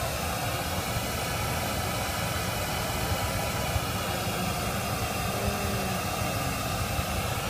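Steady hiss of a test-noise signal from the Smaart measurement generator, played through a pair of studio monitors to measure their phase alignment.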